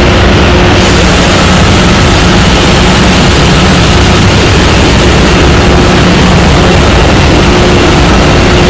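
Loud, steady drone of a ship's engine room machinery running, a deep rumble with a steady hum over it.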